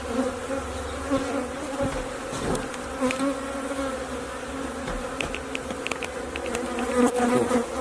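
Honeybees buzzing in a steady drone around a feral hive whose honeycomb is being cut out. A few faint ticks sound about five seconds in.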